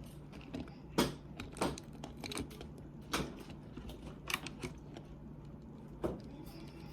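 Small plastic clicks and taps from handling a toy's parts while trying to press a button into place, irregular, with a few louder knocks spaced about a second apart, over a steady low hum.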